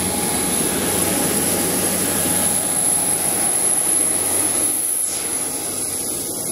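Jet turbine noise on an airport apron: a steady rushing with a thin high whine held at one pitch.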